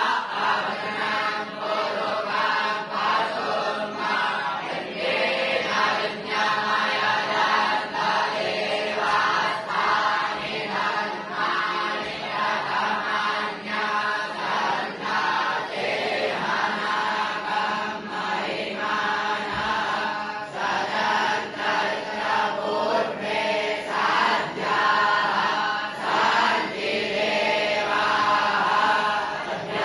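Young Brahmin students (batuks) chanting mantras together in unison, a continuous recitation of short, evenly repeated phrases.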